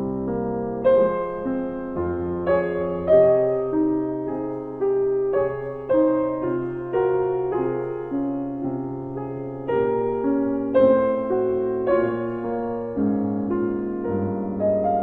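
Slow, calm keyboard music, piano-like: a melody over chords, its notes struck about once or twice a second and left to fade.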